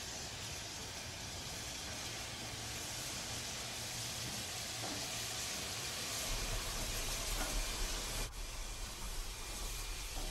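Steam locomotive hissing steadily over a low rumble. The rumble grows stronger about six seconds in, and the sound breaks off for an instant about eight seconds in.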